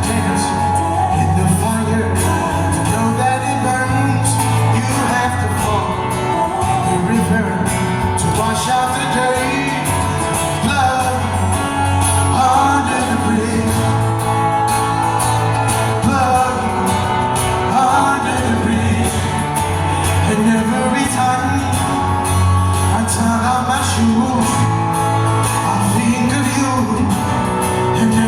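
Live band music with singing, a steady bass line under bending melodic lines, loud and continuous throughout.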